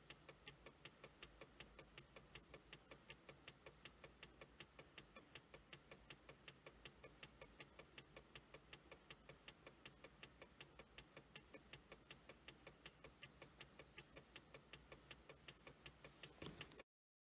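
Faint, rapid, even ticking, about four to five clicks a second, with a brief louder rustle near the end.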